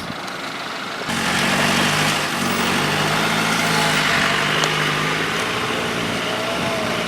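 Off-road 4x4 vehicle's engine picks up revs about a second in and then runs steadily under load, with a broad rushing noise, as it pulls on a kinetic recovery strap.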